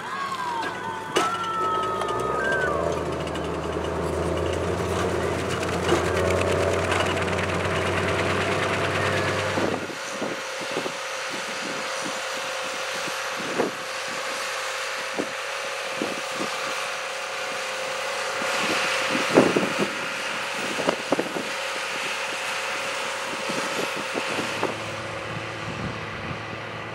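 A New Holland T7060 tractor's six-cylinder diesel engine runs as it pulls a Schuitemaker Robusta slurry tanker and injector across a field. A deep engine drone fills the first ten seconds or so, then drops away, leaving a lighter running sound with scattered knocks from the rig.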